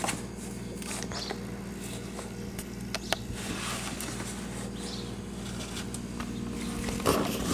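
A few light taps and scratches, like a kitten batting and clawing at cardboard, over a steady low hum.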